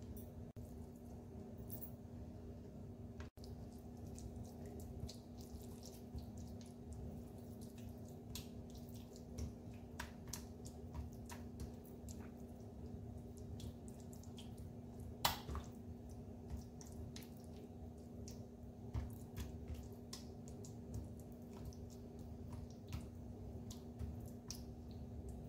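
Hands kneading a thick spice marinade into raw chicken drumsticks on a plate: faint wet squelching and sticky clicks, with one sharper click a little past halfway. A low steady hum runs underneath.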